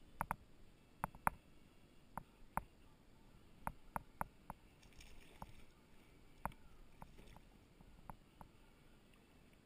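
Irregular sharp taps and knocks against a plastic sit-on-top kayak, about fifteen of them, loudest a little over a second in.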